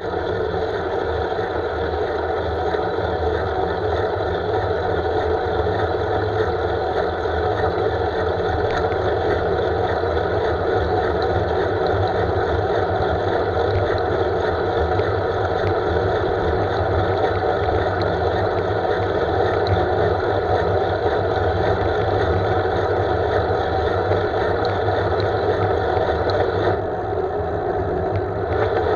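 Steady riding noise from a road bike: wind rushing over the handlebar camera's microphone and tyres humming on asphalt, mixed with motor traffic on the road. The sound goes briefly duller near the end.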